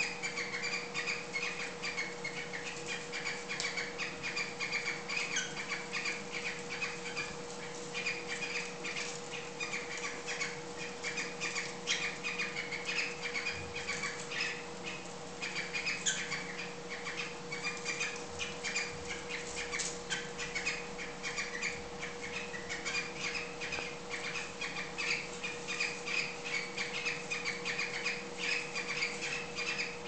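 Cockatiels chirping during mating: long runs of short, rapidly repeated chirps with only brief pauses.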